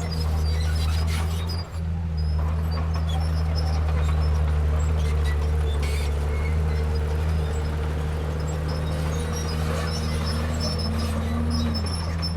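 Heavy diesel engine of a Komatsu D31P crawler bulldozer running steadily under load, with a brief dip about a second and a half in and a short rise and fall in pitch near the end.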